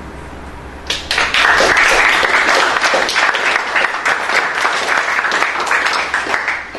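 A small group of people applauding, starting suddenly about a second in and dying away near the end.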